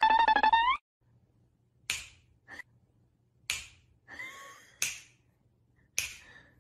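A kitten gives one short high mew that rises at the end. Then come four sharp clicks, about a second and a half apart, over a faint low hum.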